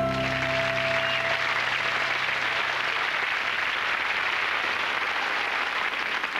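The song's last sustained chord fades out over the first couple of seconds as audience applause rises under it and carries on.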